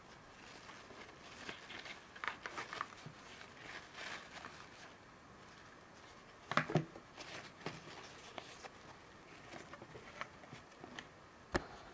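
A GoPro Chesty chest harness being handled: its fabric and elastic straps rustle and its plastic buckles and clips give scattered light clicks. There is a louder knock and rustle about six and a half seconds in and a sharp click near the end.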